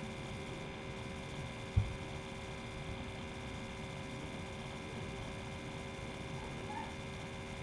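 Steady electrical hum of room tone, holding several fixed tones, with a single short low thump about two seconds in.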